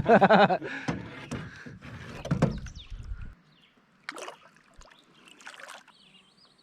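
Water splashing and knocks against a small boat's hull, with a short exclamation at the start. The sound cuts off abruptly about three seconds in, leaving only a few faint knocks and faint high chirps.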